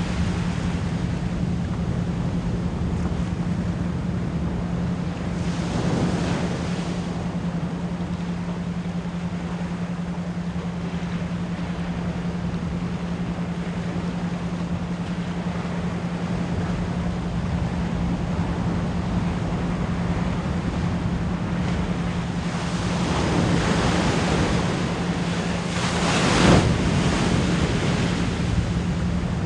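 Ocean surf washing steadily, with waves surging and breaking about six seconds in and again near the end, under a steady low pure tone at 174 Hz.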